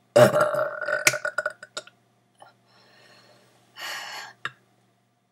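A long, deliberate, crackly burp lasting about two seconds, with a short breathy sound about four seconds in.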